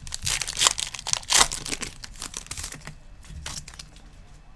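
A pack of 2020 Panini Select football trading cards being torn open, its wrapper crinkling in a run of sharp rustles for about three seconds, then quieter handling.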